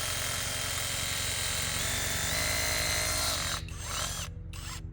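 Brushless rotary hammer drill running under the trigger for about three and a half seconds and then stopping, followed by two short bursts; a steady low hum runs underneath.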